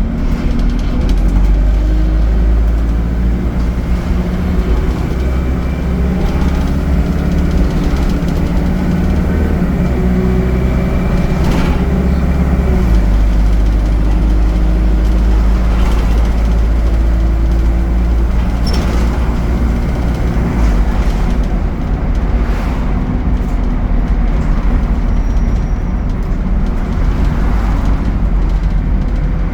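ADL Enviro 200 bus engine running under way through its Allison automatic gearbox, the engine note stepping in pitch a couple of times as it changes speed or gear. Occasional knocks and rattles sound over the engine.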